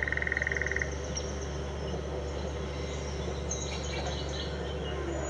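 Electronic keyboard sound-effect voice: a rapidly pulsing high tone for under a second, then a steady low hum with a few short high chirps about three and a half to four and a half seconds in.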